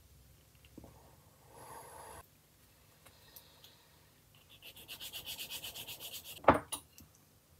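A sanding stick rubbed in quick short back-and-forth strokes against a small plastic kit wheel for about two seconds, cleaning up the part, after a brief scrape a couple of seconds earlier. A sharp knock follows the sanding, with a lighter one just after.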